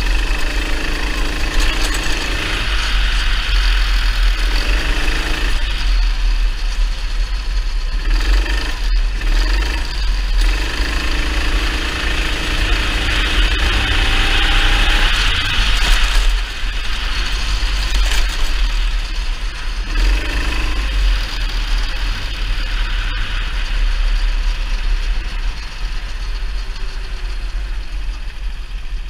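Racing kart's engine running at speed as the kart laps the track, its pitch rising and falling with the revs, over a heavy low rumble.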